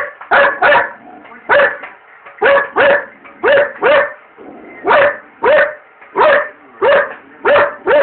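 Belgian Malinois barking repeatedly at a microwave: about a dozen sharp, loud barks, some single and some in quick pairs, roughly one every half second to second.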